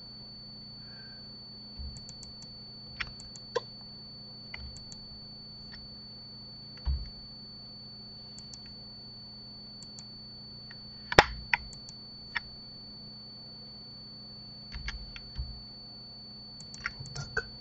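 Computer keyboard keystrokes and mouse clicks come scattered, singly and in small clusters, with the loudest click about eleven seconds in. Under them runs a steady faint hum with a thin high whine.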